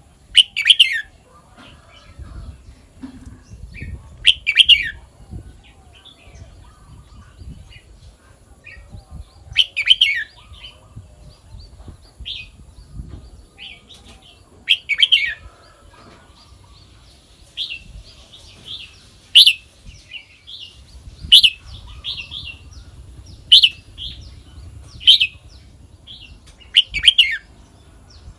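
Red-whiskered bulbul singing: short, loud whistled phrases every few seconds, coming closer together in the second half.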